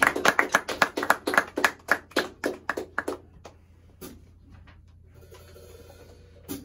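A small audience applauding with separate, distinct hand claps, dying away about three seconds in.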